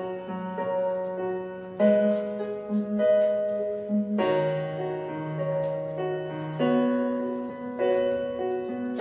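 Slow, soft piano music: held chords that change every two seconds or so, the quiet opening of the routine's song.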